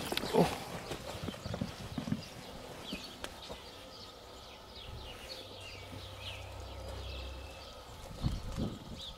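Scattered knocks and clatter of movement over a junk pile of wood and old tyres, with short high chirps in the background.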